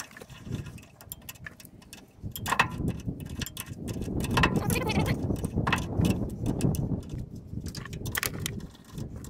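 Sharp metal clicks and clinks of a ratchet wrench and bolts as a seal housing is snugged onto the jack shaft of a Lufkin pumping unit gearbox, with a low uneven rumble underneath.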